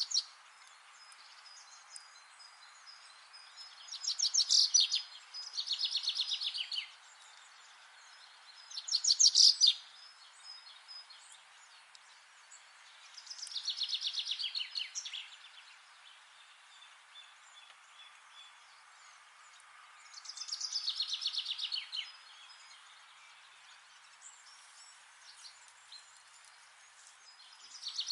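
A songbird singing short, fast trilled phrases of rapidly repeated high notes, one every few seconds, over a faint steady background hiss.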